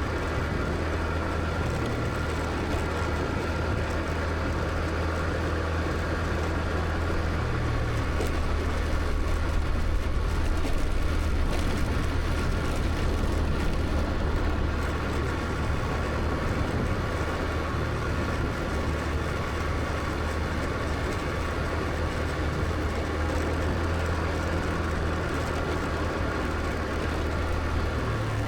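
Motor scooter riding along at a steady pace: a continuous low engine hum under steady road and wind noise.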